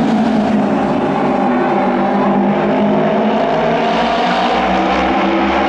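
A pack of Japanese auto race motorcycles with 600 cc twin-cylinder engines racing round an oval track at full speed. The blended engine note is steady in loudness, sagging a little in pitch and then climbing again.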